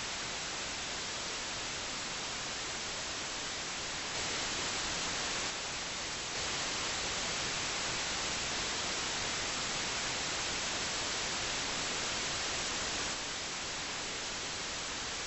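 Radio static: a steady hiss of dead air, growing a little louder about four seconds in, dipping briefly, then louder again through the middle before settling back near the end. It is the sign of the station's signal weakening as its radio loses power.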